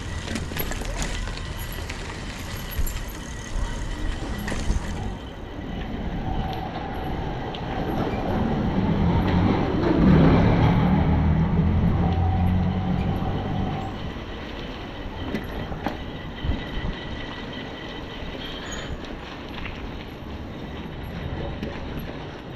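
A motor vehicle passing by: its engine hum swells to a peak about ten seconds in and then fades away, over a steady background of outdoor noise.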